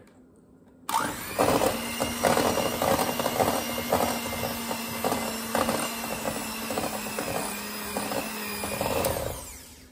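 Electric hand mixer switched on about a second in, its motor running steadily while the beaters whirr through thick cream cheese frosting and clatter against a glass bowl; it stops near the end.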